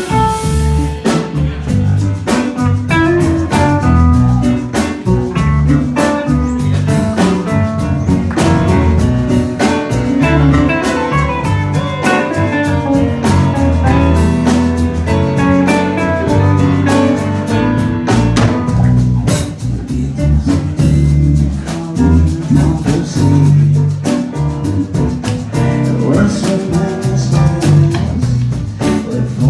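A live band playing a blues-rock song: a hollow-body electric guitar over a drum kit with a steady beat and a strong low end, loud throughout.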